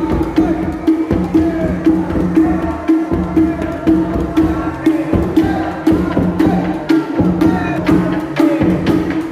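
Music with a steady percussion beat of about two strokes a second and sharp clicking hits over a repeated low tone.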